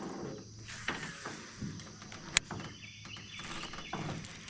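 A few short, sharp clicks and light knocks, the sharpest about two and a half seconds in, over a faint steady outdoor background.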